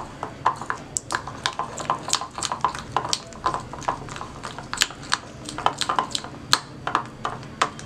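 Metal spoon stirring thick melted chocolate in a ceramic bowl, clinking and tapping against the bowl's sides a few times each second in an irregular rhythm.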